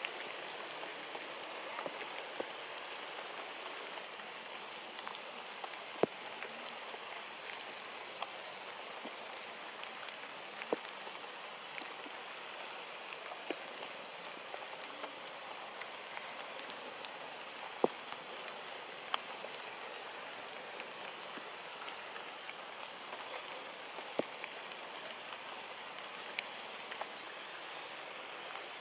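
Steady outdoor forest ambience: an even hiss with scattered sharp clicks and snaps every few seconds.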